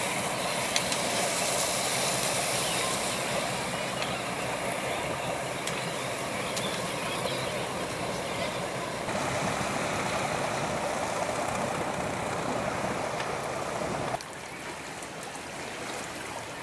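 A boat engine running steadily, mixed with water and wind noise; the sound drops sharply about fourteen seconds in.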